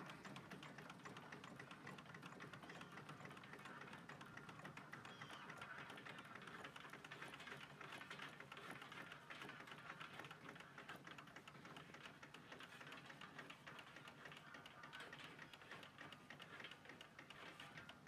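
Kerosene-fired hot-air (Stirling) engine running a fan: a faint, fast, even clicking clatter from its crank and linkages, with a low steady hum underneath.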